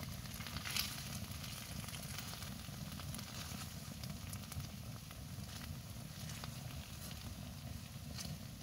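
Steady crackling and sizzling from a titanium wood-burning tent stove with food cooking on it, over a low steady rumble, with sharp crackles scattered throughout.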